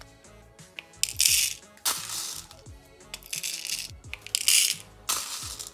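Background hip-hop style music with a steady beat, over the clicking and rattling of clear plastic compartment trays and small beads being spooned into them.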